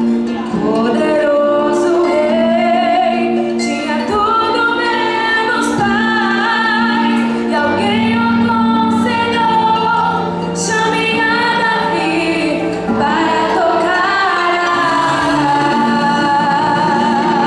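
Women singing a Portuguese gospel song with instrumental accompaniment, the melody moving in long held phrases.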